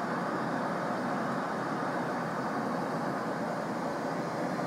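Steady airliner cabin noise, the even hum and rush of engines and airflow heard inside an aircraft lavatory, with no distinct events.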